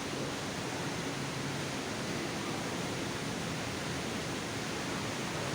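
Steady background noise of an aquarium hall: an even hiss with a faint low hum and no distinct events.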